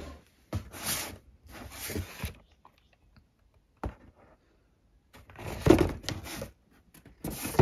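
Corrugated cardboard shipping box being handled and its top flap pulled open: several bursts of scraping, rustling cardboard, with a single sharp click a little before the middle.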